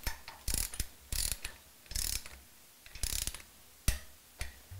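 Ratchet wrench clicking in short strokes as it tightens a cylinder-head hold-down nut, in several runs about a second apart, with a single sharp click near the end.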